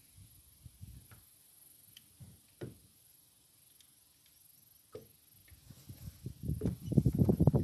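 Knocking and thumping on a small polyethylene boat: a few light, separate clicks, then from about six seconds in a dense run of loud, low knocks.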